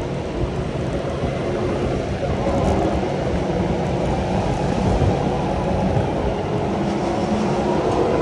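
Go-kart driving at speed around an indoor track, heard from the driver's seat: a steady low rumble with a faint hum running through it.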